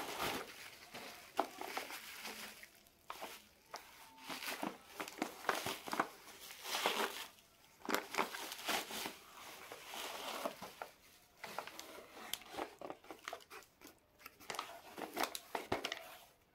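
Bubble wrap and plastic packaging crinkling and rustling in irregular bursts as they are handled and pulled off by hand, with many sharp crackles.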